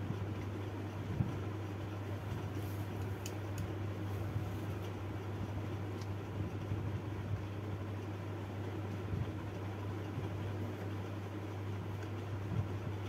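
Steady low hum with an even fan-like hiss over it, with a few faint ticks about three seconds in.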